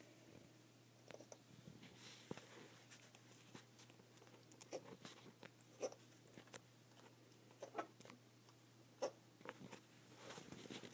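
Near silence, broken by faint, scattered short ticks and a few brief muffled sounds.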